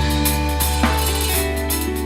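Live band music: a held low bass note under sustained keyboard chords, with one drum hit about halfway through, just after a busy drum-kit pattern has stopped.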